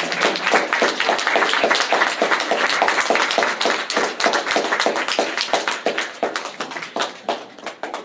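Small audience applauding: dense, steady clapping that thins out and fades near the end.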